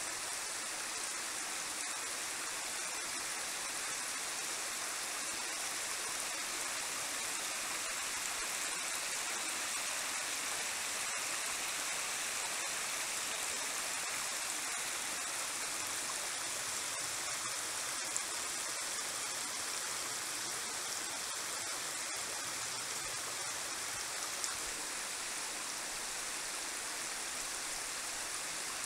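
Creek water sheeting and running down over a bare rock face, a steady, even rush of flowing water.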